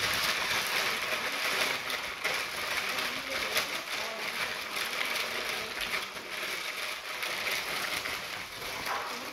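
Sheets of white packing paper crinkling and rustling as hands crumple and spread them to line a cardboard box, a continuous crackle of many small snaps.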